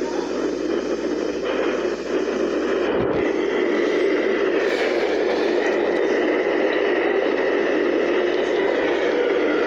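New York City subway train running through the station: a steady rumble of wheels on rail with a faint whine, and a low knock about three seconds in. Heard through a computer's speakers.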